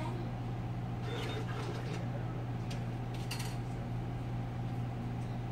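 A steady low hum, with a few faint short clicks and distant voice-like sounds over it.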